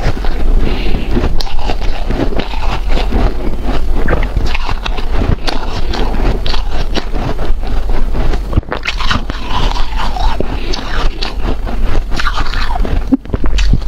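Close-up chewing of powdery, snow-like ice: continuous dense crunching with rapid crackly bites, one after another.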